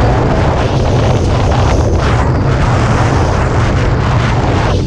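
Strong wind buffeting the microphone, with a loud, steady rush and a heavy low rumble, mixed with water rushing past a catamaran sailing at high speed.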